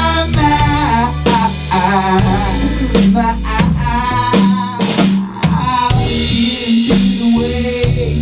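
Garage rock band playing an instrumental break, with drums to the fore: kick drum and snare with rimshots over bass and electric guitar.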